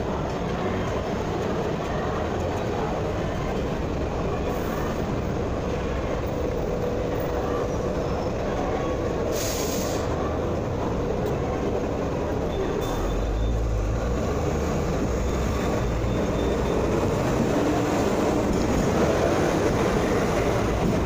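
Hong Kong tram running along the street: a steady rumble of wheels on rails that swells low about two-thirds of the way through and grows louder near the end.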